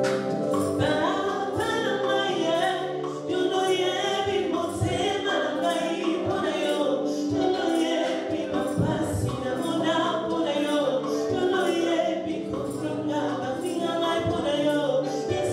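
A congregation singing a gospel song together, over a steady percussive beat.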